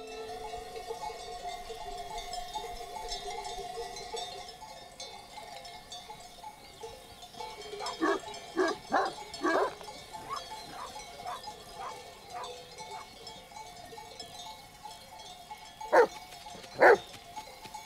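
Mastiffs guarding a sheep flock bark in short bursts: four barks about eight seconds in, a few fainter ones after, then three loud barks near the end. Under them runs the steady ringing of the flock's bells.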